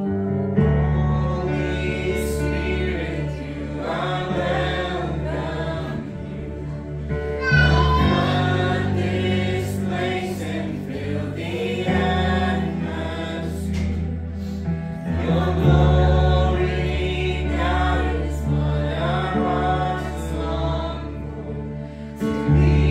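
Worship song: a group of voices singing together over instrumental accompaniment with sustained bass notes.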